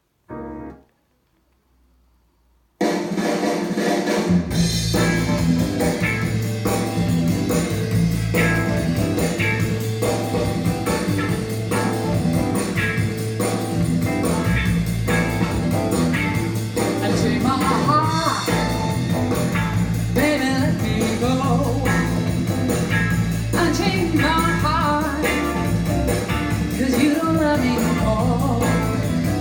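Music played back through a JBL Control CM 62 two-way speaker (6.5-inch woofer, 1-inch titanium-coated tweeter). After a brief gap between songs, a new track starts about three seconds in with a steady bass line, guitar and drums, and a singing voice comes in later.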